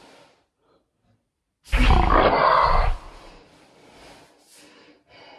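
A woman's loud, rough guttural sound from the throat, lasting just over a second, starting nearly two seconds in; quieter breathing and small throat noises follow.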